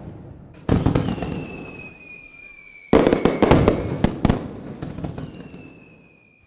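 Fireworks bursting: sharp bangs about a second in and again about three seconds in, each followed by crackling that dies away. A high whistle slowly falls in pitch after each burst.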